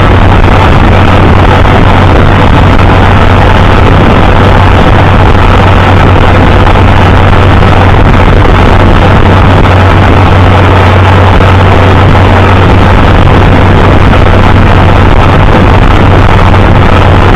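International Harvester 560 tractor engine running loud and steady, with no change in speed.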